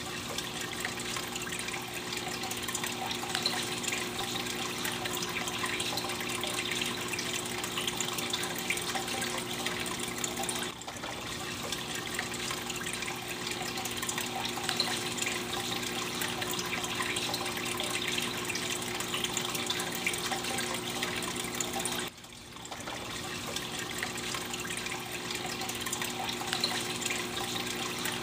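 Aquarium filter water trickling and splashing steadily, with a steady low hum from the filter pump. It dips briefly twice.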